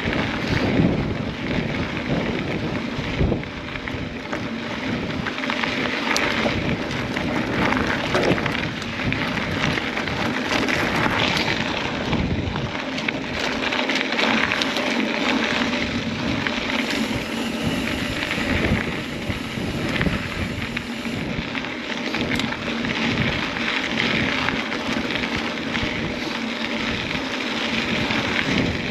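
Steady rush of wind on a camera microphone during a mountain-bike ride on a dirt track, with frequent knocks and rattles from the bike over rough ground.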